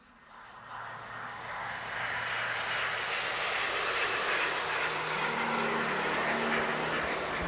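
Jet aircraft noise swelling in over about two seconds and then holding steady, with a high whine that slowly falls in pitch.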